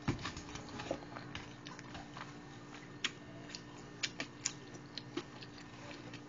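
Close-miked eating sounds: chewing a mouthful of spaghetti with soft, irregular wet mouth clicks and smacks. A faint steady hum sits underneath.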